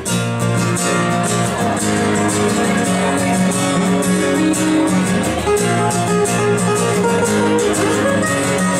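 Two acoustic guitars strumming chords together in a steady rhythm, played live.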